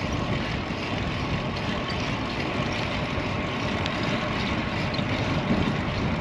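Wind rushing over an action camera's microphone while cycling into a strong headwind: a steady, rough rumble.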